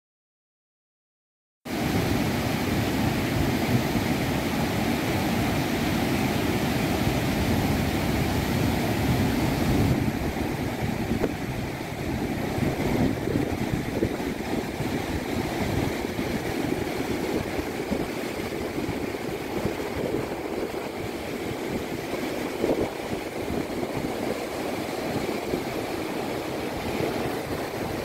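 Waterfall: a steady rush of falling water from Onaping High Falls, starting suddenly about two seconds in after a moment of silence.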